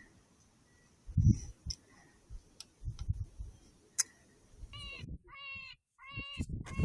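Coyote yelping in a quick run of short, high, wavering cries starting about five seconds in; before that, low thumps and faint clicks.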